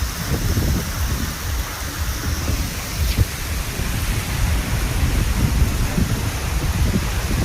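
Rain pouring down in a summer storm, an even hiss over a constant low, fluttering rumble, with one sharp tick about three seconds in.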